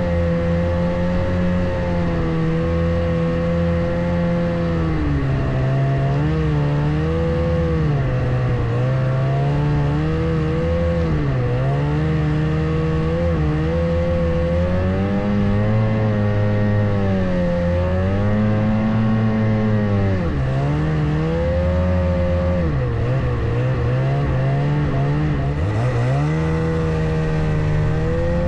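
Ski-Doo Skandic snowmobile engine running hard under load while towing a skimmer sled through deep snow. Its revs repeatedly drop and climb again every few seconds.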